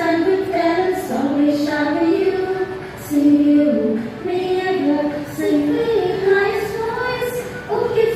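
A group of women singing a song together, holding long notes that step up and down in pitch, phrase by phrase.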